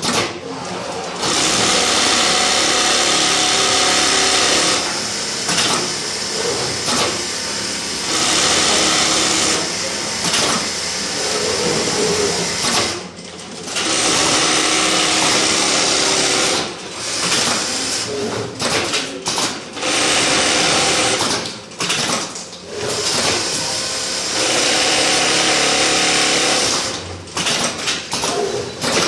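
CNC template sewing machine stitching quilting lines through thick down-filled fabric. It runs at a steady high speed in stretches of a few seconds, broken by short stops.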